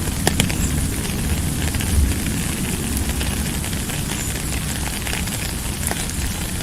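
Steady rain: a dense hiss with scattered sharp ticks of drops and a low rumble underneath.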